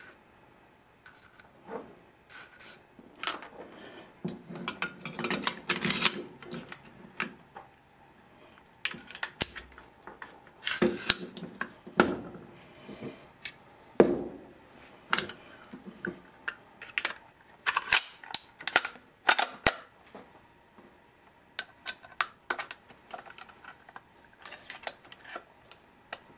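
Steel parts of an Ingram MAC-10 submachine gun being handled and fitted together during reassembly: a run of irregular metallic clicks, knocks and short scrapes as the bolt and upper receiver are worked and set onto the lower receiver.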